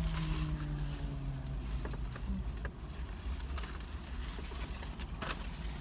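A paper take-out bag rustling and crinkling, with a louder crinkle near the end, over a steady low rumble. A low hum slides slowly downward and fades out about a second and a half in.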